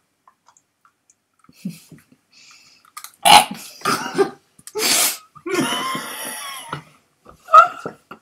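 People laughing hard and breathlessly in a run of short bursts that start about three seconds in, with one longer burst just past the middle.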